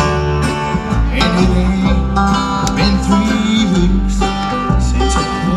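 Bluegrass band playing live over a PA, picked up from far back in the crowd: plucked acoustic guitar and banjo over a steady bass, an instrumental stretch between sung lines.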